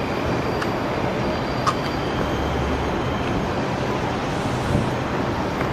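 Steady noise of New York City subway trains, with one sharp click about a second and a half in.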